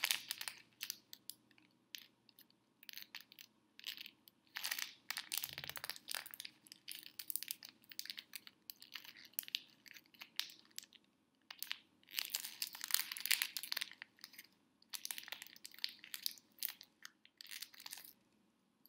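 Christmas wrapping paper crinkling and tearing as a small gift is unwrapped by hand. It comes in irregular bursts of crackles with short pauses, and stops shortly before the end.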